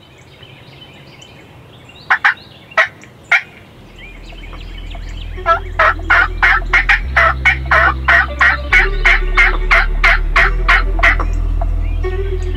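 Turkey yelping: a few single yelps about two seconds in, then a long run of about twenty yelps at three to four a second. Background music with a low bass fades in underneath from about four seconds in.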